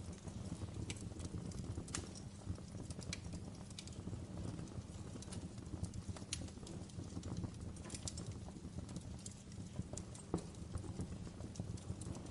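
Wood fire crackling: irregular sharp pops and snaps over a steady low rumble of burning flames.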